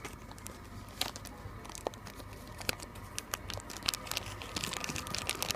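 Toy packaging crinkling and rustling as it is handled, with scattered sharp clicks and crackles that grow denser near the end.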